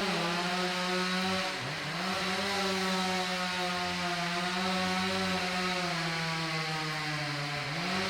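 Chainsaw running at high revs while cutting a large anjili (wild jack) tree. Its pitch dips sharply and recovers about a second and a half in and again near the end, and sags slowly in between.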